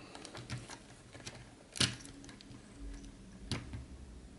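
Faint, scattered clicks and rustles of fingers handling a small circuit board, thin wires and 3D-printed plastic frame parts, with two sharper clicks about a second and a half apart.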